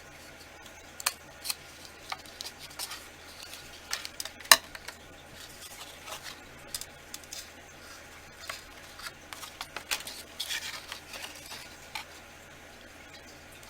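Scissors snipping thin cardboard in irregular short cuts with small clicks and rustles; the sharpest click comes about four and a half seconds in.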